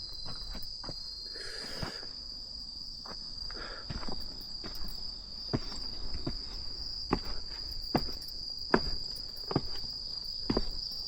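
A steady, high-pitched insect chorus, crickets chirring in the night, with footsteps at a slow walking pace, about one step a second.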